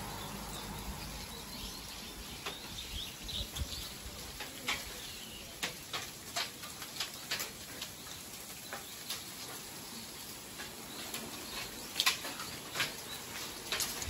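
Small birds giving scattered short chirps and calls, irregularly spaced and loudest about twelve seconds in, over a soft steady outdoor hiss.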